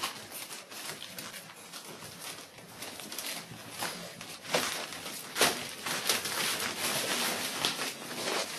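Whippet puppies scrambling over newspaper: crinkling, rustling paper and small scratchy clicks, busier and louder from about halfway through.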